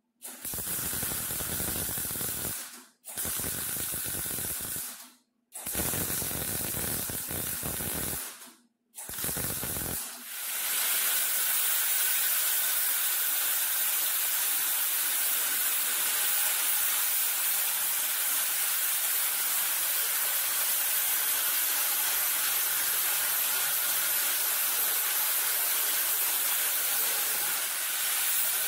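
Arc welding on a steel car door in four short runs, each starting and stopping abruptly. About ten seconds in, an angle grinder with a flap disc starts grinding the weld seams down, with a steady whine over a loud, continuous hiss.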